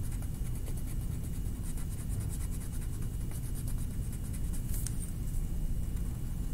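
A black drawing tool scratching across paper in quick, repeated back-and-forth strokes as a drawing is outlined and filled in, over a steady low hum.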